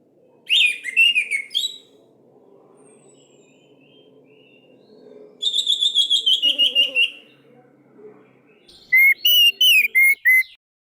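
Orange-headed thrush singing: three bursts of fast, varied, canary-like whistled song phrases, each a second or two long, over a faint low hum.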